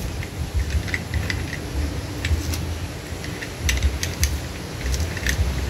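Rope being pulled by hand through the sheaves of a pulley block, with scattered light clicks and rattles from the blocks.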